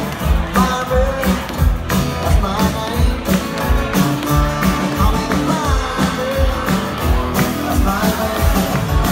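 Live band playing, with strummed acoustic guitars and a drum kit keeping a steady beat about twice a second, and a singer's voice over them.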